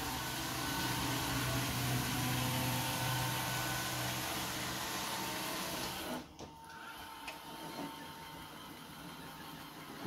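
iRobot Roomba S9 robot vacuum running with a steady motor hum as it drives off a hardwood floor onto carpet. About six seconds in the sound drops and turns quieter and duller, and a lower, steady hum carries on.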